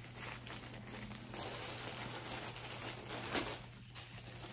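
Tissue paper wrapping rustling and crinkling as it is unfolded and pushed aside by hand, louder from about a second in, with a sharper crackle a little over three seconds in.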